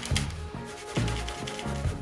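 Background music with a steady beat, over the rubbing of an abrasive fret eraser polishing the guitar's frets.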